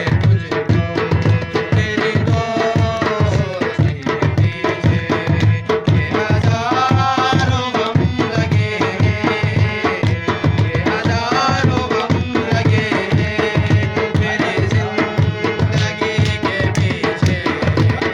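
Ghazal music: tabla playing a quick, steady rhythm under a gliding melodic line.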